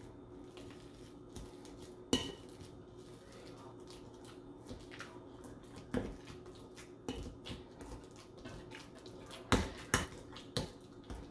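Bananas being mashed in a bowl with a kitchen utensil: irregular clinks and taps of the utensil against the bowl, with a sharp knock about two seconds in and several louder knocks near the end.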